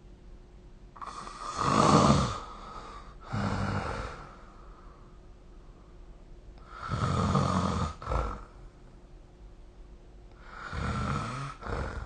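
A sleeping person snoring, three snores about four and a half seconds apart, each followed by a shorter second breath sound.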